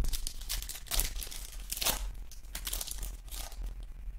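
Foil trading-card pack wrappers crinkling and tearing as packs are handled and ripped open, a run of short crackles with the loudest about two seconds in.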